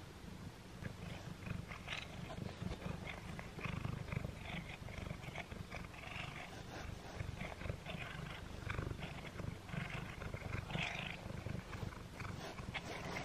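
A tabby cat chewing on a chewy string cat treat: irregular wet chewing clicks over a continuous low rumble from the cat.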